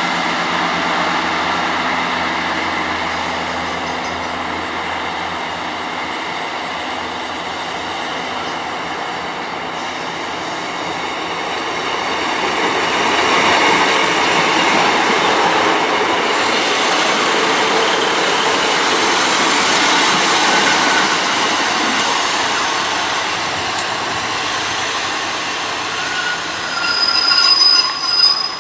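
Diesel multiple unit running through the station, its engine and wheels on the rails growing louder as it passes close by, from about halfway through. Near the end there is a short, louder, shrill sound.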